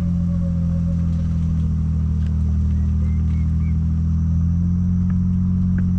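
Engine of a side-by-side utility vehicle running steadily with a low, even hum as it drives slowly. A few faint, short high chirps come through about three seconds in.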